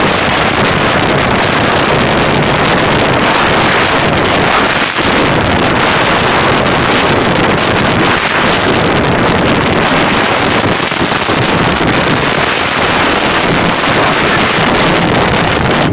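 Heavy wind rush buffeting the microphone of a phone filming from a moving motorcycle, steady and loud throughout, with the motorbike's ride noise underneath.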